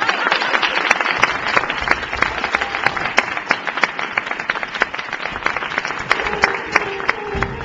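Audience applauding, with sharp individual claps close by. About six seconds in the clapping thins out as music starts playing.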